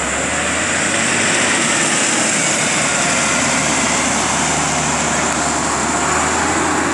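Tractor's diesel engine running steadily under load in the surf, mixed with the continuous rush of breaking waves and wind on the microphone.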